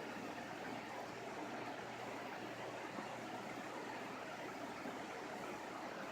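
Steady background hiss with a faint low hum, and no distinct sounds standing out.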